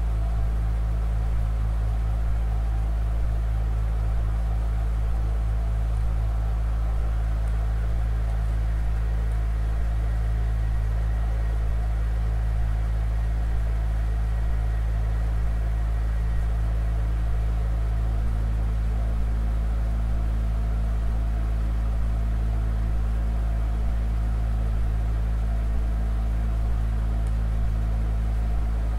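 Organ holding low notes in a steady drone, with a slow wavering beat between close pitches for the first few seconds. A slightly higher held note joins about two-thirds of the way through.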